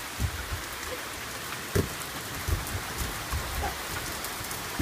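Steady rain falling on a wooden deck, an even hiss, with a few low thumps and one sharper knock about two seconds in.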